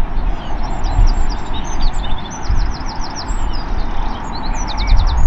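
Jet engines of a British Airways Airbus A321neo at takeoff power on its takeoff roll, a steady low rumble from down the runway, with small birds chirping over it throughout.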